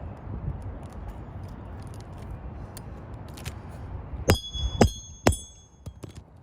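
Hammer driving a roofing nail through a shingle: three sharp metallic strikes about half a second apart near the end, each with a brief high ring.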